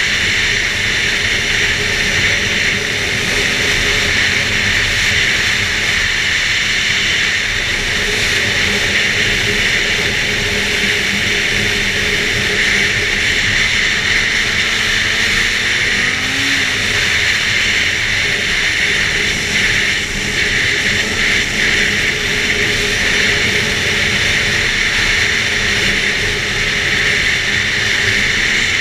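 2011 Arctic Cat F8 Sno Pro snowmobile's two-stroke twin engine running steadily under way, its pitch and level holding even, with a brief dip about twenty seconds in.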